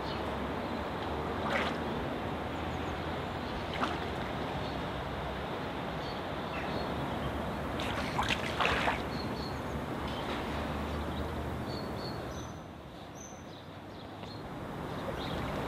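Steady lakeside water and wind noise with a low rumble, broken by a few short sharp knocks, a cluster of them about eight seconds in; the noise drops briefly near the end.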